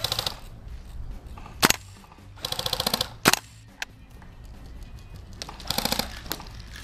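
Airsoft rifles firing three short fully automatic bursts, each a fast rattle of about fifteen shots a second. Single sharp cracks fall between the bursts.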